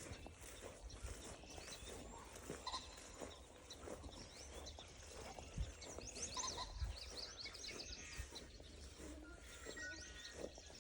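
Small birds chirping in quick up-and-down phrases, busiest a little past the middle, over low wind rumble on the microphone and a few soft footstep thumps.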